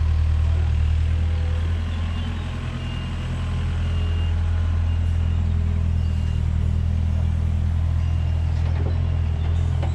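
The Yanmar diesel engine of a Takeuchi TB145 mini excavator running steadily, with a short, faint high beep about once a second through the middle.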